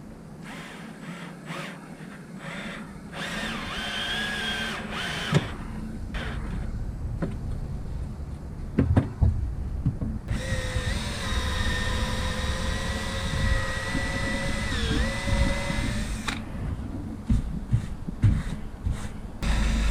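Power drill running in two bursts: a short one about three seconds in and a steady one of about five seconds starting near ten seconds, whose pitch dips briefly near its end as it slows under load. Scattered knocks come in between.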